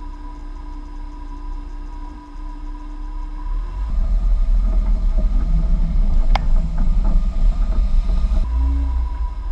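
A Jeep driving over an off-road course: a low rumble that grows louder about four seconds in, with rattles and one sharp click in the middle, then eases back near the end.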